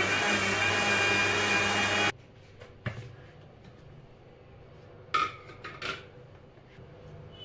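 Panasonic mixer grinder's motor running at full speed, grinding a thick batter, then switched off about two seconds in. It is followed by a few brief clicks and knocks.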